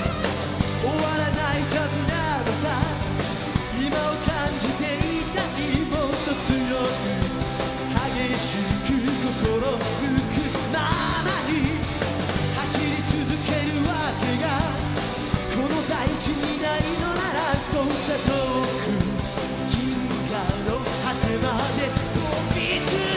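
Live rock band: a male lead vocalist singing over electric guitar, bass and a steady drumbeat.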